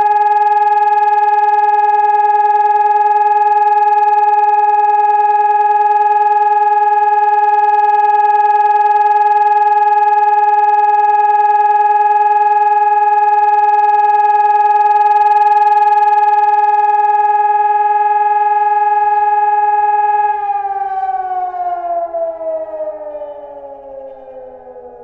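Civil defence siren sounding the German 'Entwarnung' all-clear signal, a single steady tone held without wavering, then winding down about 20 seconds in, its pitch and loudness falling together.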